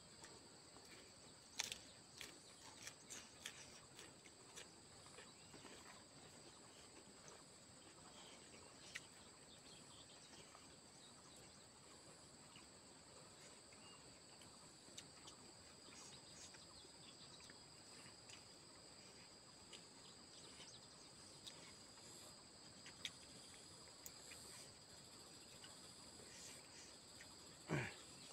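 Quiet insect drone, steady at two high pitches, with faint scattered clicks and smacks of eating with the hands and chewing. A brief louder sound comes near the end.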